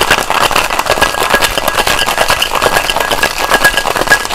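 Ice rattling hard and fast inside a metal cocktail shaker tin set, shaken vigorously without a break to chill and dilute a whiskey sour.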